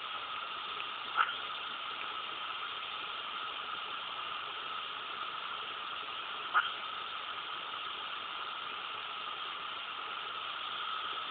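Hiccups: two short, sharp hiccups about five seconds apart, over a steady hiss.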